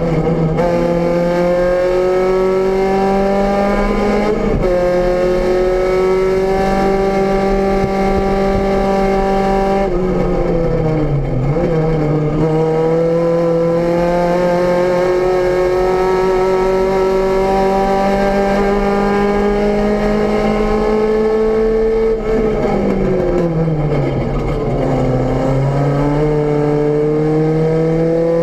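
VW Rabbit GTI race car's four-cylinder engine at racing speed, heard from inside the stripped cabin. Revs climb steadily and dip briefly near the start, then fall sharply twice, about ten seconds in and again a little past twenty seconds, each time before climbing again.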